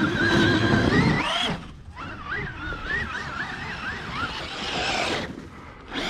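Brushless electric motor of a Traxxas RC monster truck whining under throttle in snow. The pitch climbs for about a second and a half, cuts off, then rises and falls several times with quick throttle blips.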